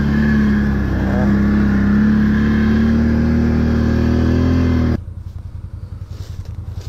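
Can-Am 6x6 ATV engine running steadily under way, its note creeping slightly higher. About five seconds in it cuts off sharply to a quieter, rapidly pulsing engine idle.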